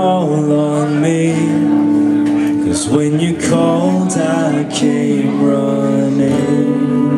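Live acoustic guitar strumming with a voice singing long held notes: a song near its end.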